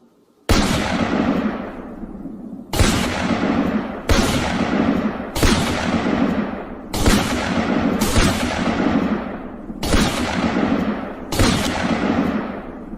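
A string of about eight loud gunfire sound effects, each starting with a sudden blast and trailing off over a second or so, one after another every second and a half or so.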